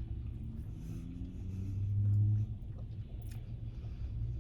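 Low, steady rumble inside a parked car's cabin, with a faint hum that swells about two seconds in, and a few faint clicks.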